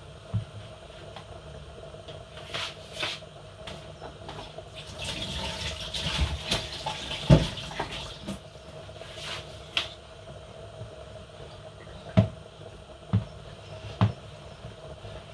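Water poured into a bowl for a few seconds around the middle, among scattered sharp knocks of a utensil against the bowl. The loudest knock comes about seven seconds in. A faint steady hum runs underneath.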